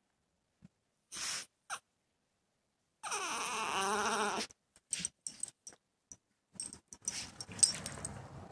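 Male Yorkshire terrier whining, one long whine with a wavering pitch a few seconds in, with short breathy sniffs before it and clicks and rustling after. He whines at being kept away from a female in heat.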